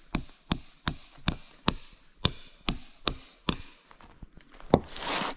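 Hammer driving a steel nail into a tree trunk, about nine steady blows at two to three a second, each with a metallic ring; the nail is being set as a climbing step. The hammering stops about three and a half seconds in, followed by one more knock and a short rustle.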